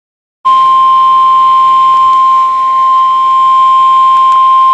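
NOAA Weather Radio's 1050 Hz warning alarm tone: a single loud, steady tone that starts about half a second in and holds without a break. It is the attention signal that comes before a spoken tornado warning.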